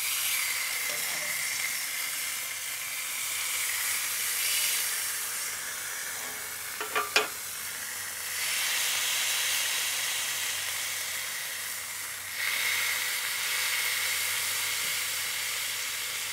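Marinated smash burger patties sizzling and frying on a hot griddle plate over charcoal, a steady hiss that swells twice. A few sharp clicks about seven seconds in, from the metal burger spatula knocking on the plate.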